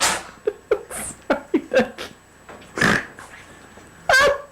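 A run of short animal calls, each brief and falling in pitch, followed by a louder rushing burst and one more strong call near the end.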